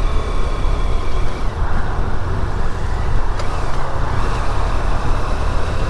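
Steady riding noise from a BMW F800GT motorcycle: wind rushing over the microphone as a loud, low rumble, with the bike's 798 cc parallel-twin engine running underneath.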